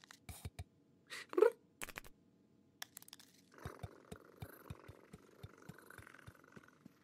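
Cartoon cat sound effects: a few soft crunches of the cat chewing cookie crumbs and a short vocal grunt about a second and a half in. From about three and a half seconds on, a faint hiss with quick, even light ticks follows.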